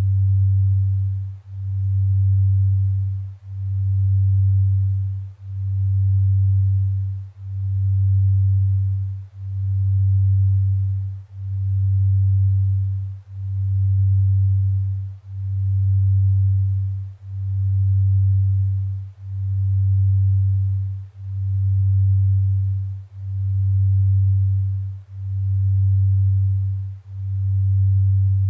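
Low steady sine tone of a binaural-beat sleep track, pulsing in loudness about once every two seconds, a slow delta-range beat.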